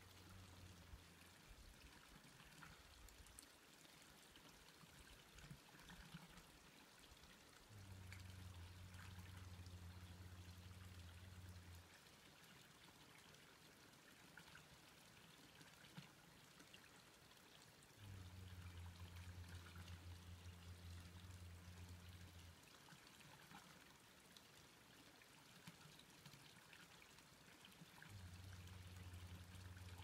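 Near silence: faint outdoor room tone, with a low hum that comes in for about four seconds at a time, several times.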